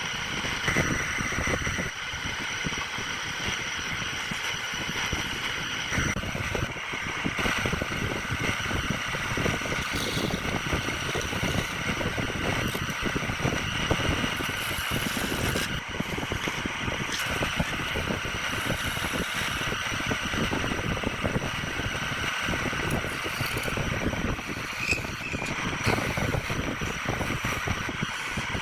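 Wood lathe running while a turning tool cuts the spinning workpiece: a steady whine under a dense, rapid, irregular scraping and chatter.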